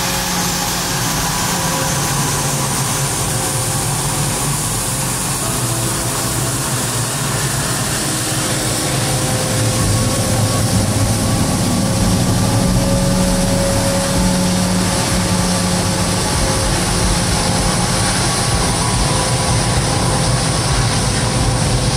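Twin-engine business jet taxiing, its rear-mounted jet engines running at low power: a steady, loud rumble with held tones over a broad rush of noise.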